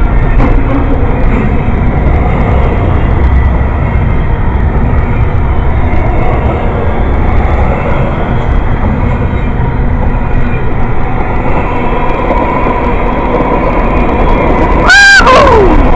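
Freight train of double-stack container cars and tank cars rolling past close by: a steady heavy rumble of wheels on rail, with a faint steady squeal setting in about three-quarters of the way through. About a second before the end a brief, loud high-pitched tone cuts in and slides down in pitch as it fades.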